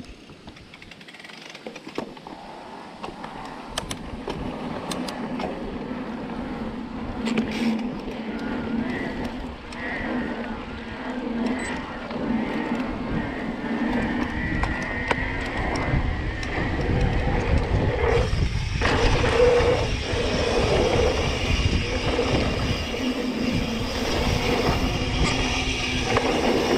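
Mountain bike riding along a dirt trail: wind buffeting the camera microphone, with the rumble and rattle of the bike over the rough ground. It grows louder through the first half as the ride picks up speed.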